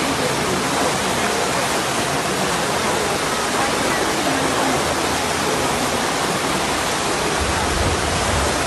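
Torrent of muddy floodwater from heavy rain rushing past: a steady, dense rush of water.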